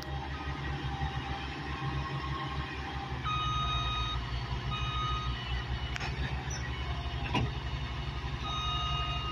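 Diesel dump truck engine running steadily as the hydraulic hoist tips up the box loaded with dirt. A backup alarm starts beeping about three seconds in and repeats, with two sharp knocks later on.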